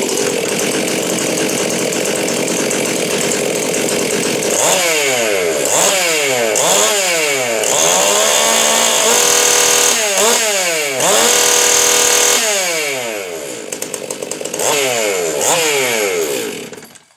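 A modified Stihl MS 362 C-M two-stroke chainsaw, ported with a decked cylinder and an opened-up muffler, on a test run. It runs fast, then is revved up and down over and over, with a couple of stretches held near full throttle in the middle, and shuts off sharply near the end.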